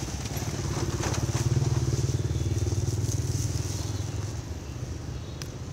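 A motor vehicle's engine passing by: a steady low hum that grows louder to about two seconds in, then fades away.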